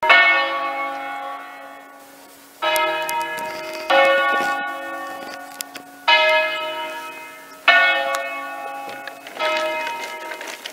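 Bells struck one at a time, six strikes on different notes at uneven gaps of one to two seconds, each ringing on and slowly fading.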